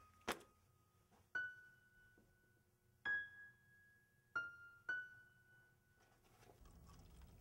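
Soft, sparse piano music: single notes struck one to two seconds apart, each left to ring and fade.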